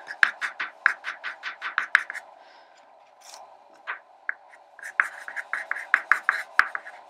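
Soft pastel stick scratching on paper in short, quick strokes, about five a second, pausing for a couple of seconds in the middle with only a few single strokes before the rapid scratching resumes.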